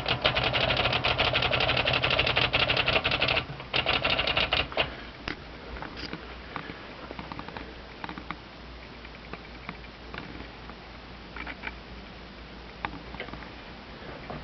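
Olivetti Lettera 32 manual portable typewriter's mechanism clicking in a fast, dense run that stops about four and a half seconds in. After that come only a few scattered light clicks and taps.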